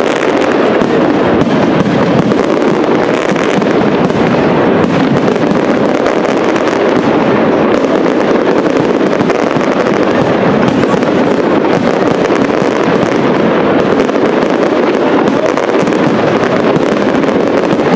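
Castillo aerial fireworks display: many shells bursting and crackling at once in a dense, unbroken barrage with no pauses.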